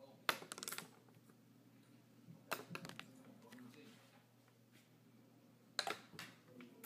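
A wooden paintbrush landing and clattering on a hard surface after being flipped: three short rattles of rapid clicks, one near the start, one in the middle and one near the end.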